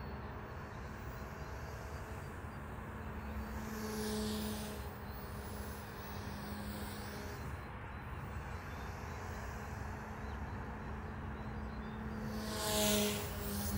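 Electric radio-controlled helicopter (OMP Hobby M1) flying, its rotors and motor giving a steady hum. It grows louder twice, about four seconds in and near the end, as it passes close by.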